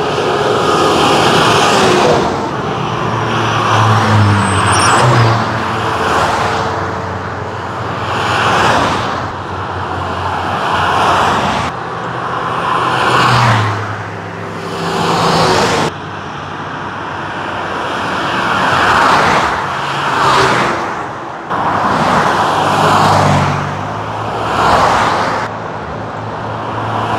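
Highway traffic passing close by: cars, a truck and a minibus go past one after another, each swelling up and fading, with tyre noise on the asphalt and engine hum, about every two to three seconds.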